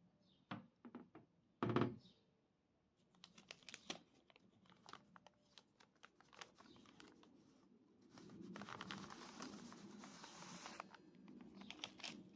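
Paper-and-card protector sheet being peeled off a new electric guitar's neck and strings: two knocks of handling near the start, then crinkling and small ticks of paper, with a longer, denser rustle in the second half.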